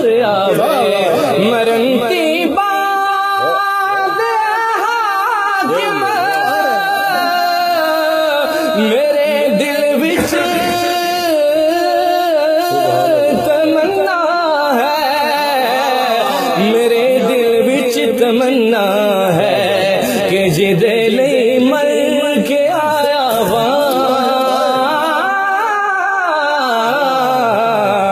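Devotional Punjabi naat singing by a man's voice, drawn out in long, wavering melodic lines with no clear words.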